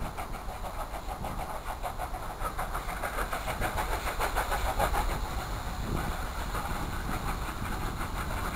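Steam locomotive approaching under steam, its exhaust beating in a quick, even rhythm of chuffs over a low rumble.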